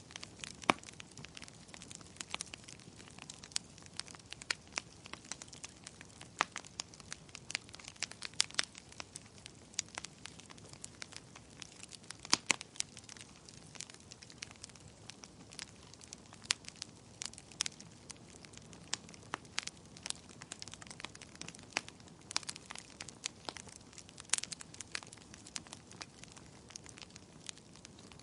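Wood fire crackling: irregular sharp snaps and pops, several a second, over a low steady hiss of burning.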